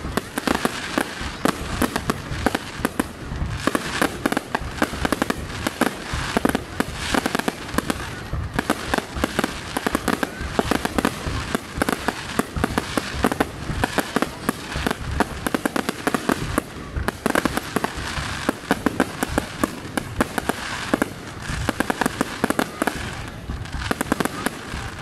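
Aerial fireworks display, shells bursting overhead in quick, continuous succession: a dense run of sharp bangs with no pause.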